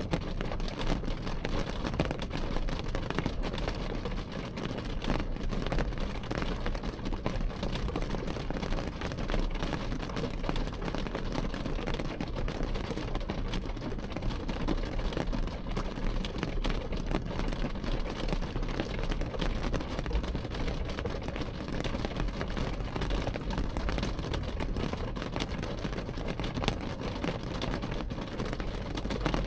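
Rain falling on window glass: many small drop hits merging into a steady, even patter with a low rumble underneath.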